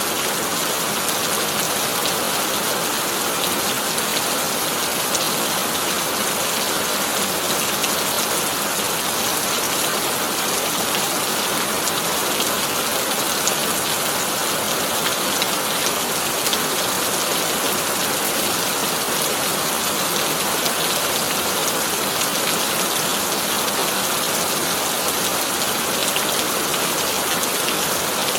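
Heavy rain falling steadily on a tin roof: a dense, even wash of drops with fine ticks of single drops, and no thunder.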